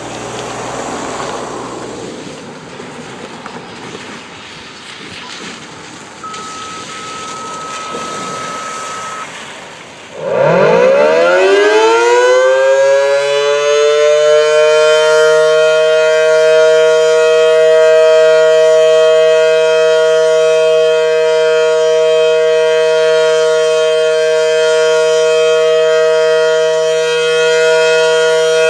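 Federal Model 5T outdoor warning siren starting up about ten seconds in: its pitch rises over about three seconds, then it holds a loud, steady two-note tone. Before it starts there is wind noise on the microphone.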